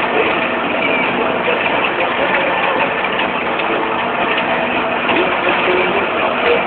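Deutz-Fahr Agroplus tractor's diesel engine running steadily under load, heard from the driver's seat while it pulls a working rotary hay tedder.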